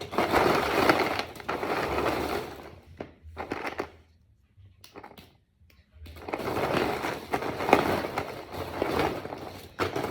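Hundreds of small plastic Brain Flakes discs being stirred and shuffled by hand in a pile: a dense clattering rattle. It stops for a couple of seconds midway, then starts again.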